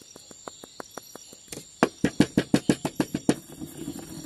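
Cumin seeds being pounded with a pestle in a small ceramic mortar. Light, even taps about six a second give way, a little before halfway, to much louder, quicker strikes, and near the end to a grinding scrape as the seeds are crushed.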